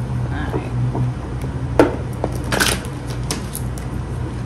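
Deck of tarot cards being shuffled by hand, the cards clicking and rustling, with a sharp tap a little under two seconds in and a short rustle of cards about half a second later.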